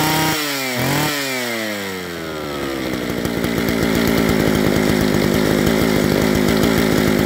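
Homelite 750 vintage two-stroke chainsaw engine revved twice in quick succession, its pitch rising and falling back each time, then settling into a steady idle.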